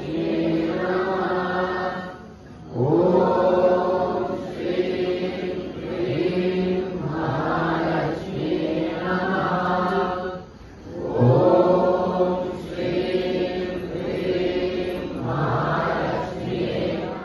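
A crowd of worshippers chanting a prayer together in unison, in long drawn-out phrases. The chant breaks briefly twice, about two seconds in and about ten seconds in.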